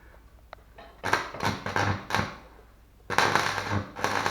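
Electric welding arc crackling and buzzing over a low hum, first in a few short bursts about a second in, then steadily from about three seconds in.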